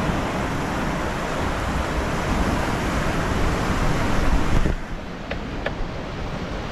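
Sea surf washing steadily against the rocks, which drops away abruptly a little under five seconds in, followed by a couple of faint clicks.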